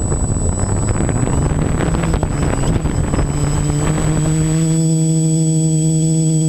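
Small multirotor drone lifting off. A rushing, gusty noise of the spinning propellers gives way about four seconds in to a steady motor-and-propeller hum with several overtones as it climbs. A thin high whine runs throughout.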